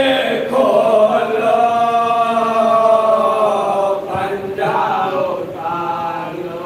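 Several men's voices chanting a marsiya, a Shia elegy of mourning, in long drawn-out held notes.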